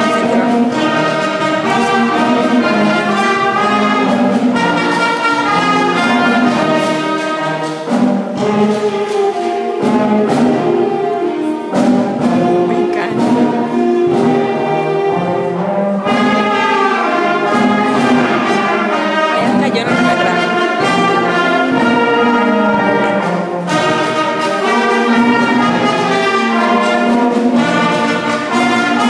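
School concert band of woodwinds and brass, flute among them, playing a piece under a conductor, with sustained full chords.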